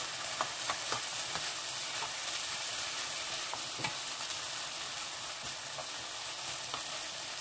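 King oyster mushrooms and sliced chili peppers sizzling steadily as they stir-fry in a frying pan, with a wooden spatula scraping and knocking against the pan now and then, most sharply about four seconds in.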